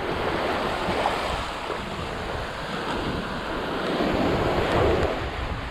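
Small surf waves breaking and washing up a sandy beach, a steady hiss of water with a slight swell about four seconds in, and wind rumbling on the microphone.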